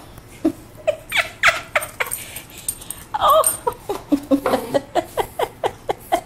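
Havanese dogs giving short, high-pitched calls: a few scattered ones at first, then a quick run of about four or five a second near the end.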